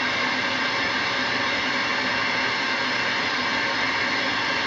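Steady static hiss from a CB radio receiver with the squelch open, between transmissions.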